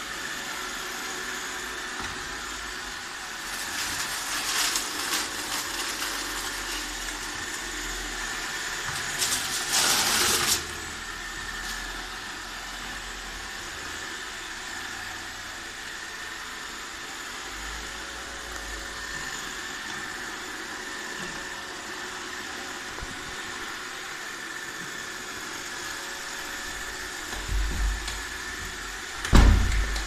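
iRobot Roomba 612 robot vacuum running on a tile floor: a steady whir of its vacuum motor and brushes with a high, even whine. Louder rough noise swells up around four seconds in and again around ten seconds, and a few low thumps come near the end.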